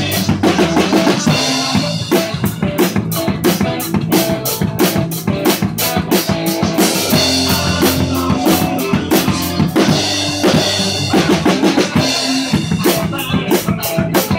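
Live rock jam: a single-cutaway electric guitar and a drum kit playing together loudly, with a steady beat of kick and snare under the held guitar chords.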